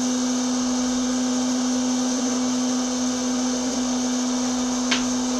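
Electric popcorn maker's motor running with a steady hum and hiss while the kernels heat, not yet popping. One short click near the end.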